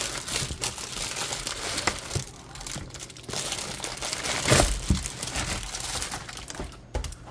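Clear plastic air-column bubble wrap and cellophane crinkling and rustling as a box is slid out of the packaging, with a louder crinkle about four and a half seconds in.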